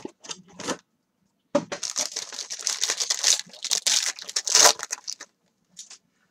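Plastic card wrappers and sleeves crinkling and rustling as trading cards are handled, with a brief bit at the start and a longer run from about a second and a half in to near the end.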